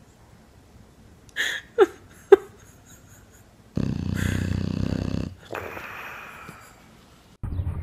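Sleeping English bulldog snoring and wheezing: three short squeaky falling sounds about two seconds in, then a loud rasping snore about four seconds in, followed by a long wheezing breath out that fades.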